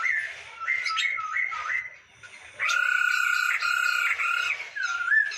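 Black-throated laughingthrush (poksay hongkong) singing: clear whistled phrases of sliding notes, then after a short pause a run of steady, evenly repeated whistles, ending with a slurred rising and falling whistle.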